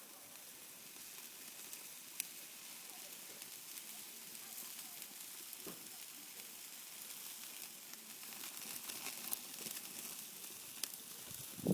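Chicken sizzling on a grill over a wood fire: a steady hiss with scattered sharp crackles and pops, a few of them louder.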